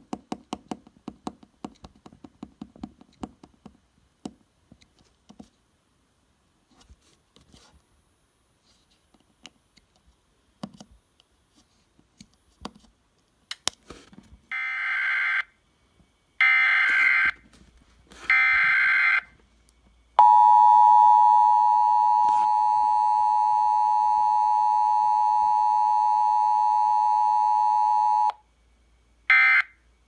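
Burk EAS encoder transmitting an Emergency Alert System tornado warning. After a run of faint clicks, it sends three short screeching bursts of SAME header data. Then comes the steady two-tone attention signal for about eight seconds, and the first short end-of-message data bursts start near the end.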